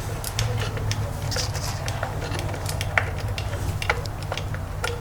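Light clicks and clinks of a T20 Torx screwdriver and small metal parts being worked on a steering wheel, scattered irregularly, over a steady low hum.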